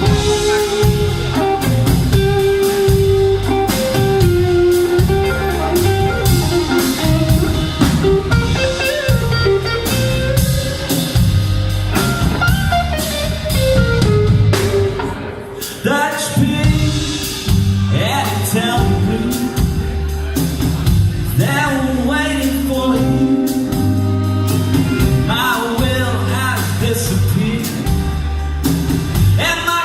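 Live band playing a blues-style song: a singer over guitar, bass and drums, with a steady beat.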